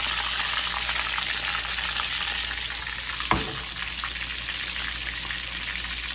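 Breaded chicken cutlets shallow-frying in hot oil in a skillet: a steady sizzle full of small crackles. A single light knock about three seconds in.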